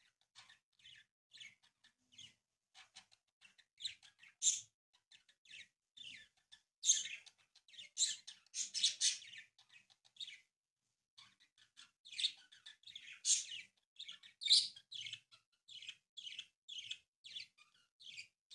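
A sheet of origami paper being folded by hand: a run of short, crisp rustles and crinkles as it is handled and creased, some louder than others, coming irregularly with brief pauses between.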